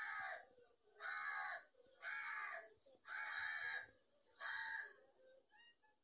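A crow cawing: five harsh, loud caws at about one a second, stopping about five seconds in.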